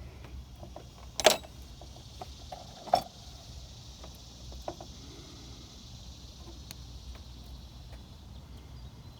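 Small metal pick tools clicking and scraping against a downstreamer injector body while prying out its old O-ring: two sharp clicks, about a second and three seconds in, with fainter ticks between, over a low steady hum.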